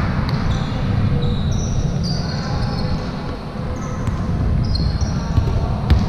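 Basketball game on an indoor court: a ball bouncing and short high sneaker squeaks, over a steady low rumble from the hall, with a sharp knock near the end.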